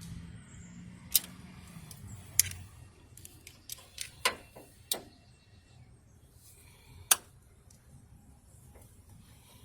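Sharp metal clicks and clinks of locking pliers worked on a broken stud, about six, spaced unevenly.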